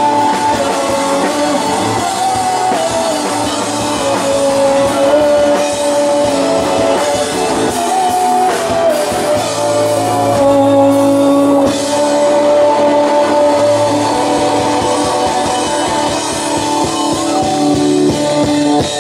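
Rock band playing live through a PA: electric guitars over a drum kit, with a held melody line that moves in steps and bends.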